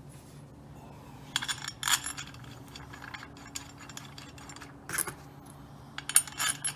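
Allen bolts clinking and rattling against the aluminum plate of a clutch removal tool as they are put in by hand, in three short clusters of metallic clicks, the loudest near the end, over a steady low hum.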